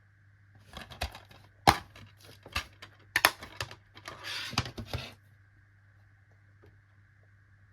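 A plastic DVD case being handled and opened: a run of sharp plastic clicks and taps, with a short rustle of crinkling packaging near the middle, lasting about four seconds.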